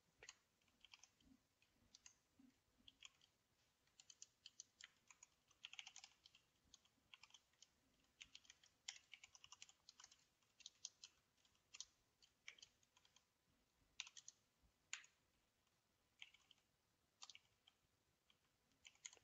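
Computer keyboard being typed on: faint, irregular clusters of key clicks with short pauses between them, thinning out near the end.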